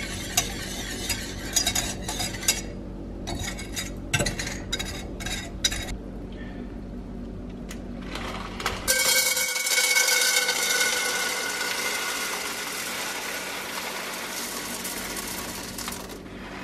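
A coil whisk clinks and scrapes against a saucepan while stirring caramel. About nine seconds in, popcorn kernels are poured into a hot oiled pan and start sizzling, a hiss that comes on suddenly and slowly fades.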